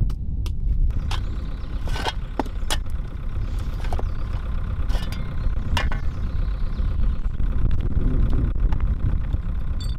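Tractor engine running steadily, with scattered sharp knocks of fieldstone being handled and dropped.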